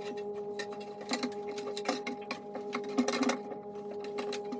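Irregular small clicks and ticks of hand work on a bathroom exhaust fan's metal junction box and wire clamp as it is tightened, over a steady hum.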